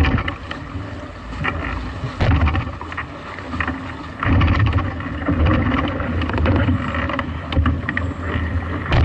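Wind buffeting the microphone in heavy gusts, heavier from about four seconds in, with water splashing and scattered knocks and rattles around a Moth foiling dinghy.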